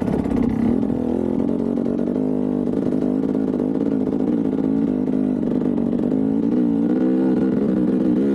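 Enduro motorcycle engine running while being ridden, holding a fairly steady engine speed with slight rises and falls in pitch.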